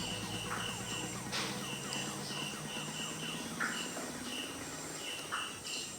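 Cricket chirping steadily in the background, a short high pulse repeating about two to three times a second, with a few soft rustles as the dry flour coating is mixed.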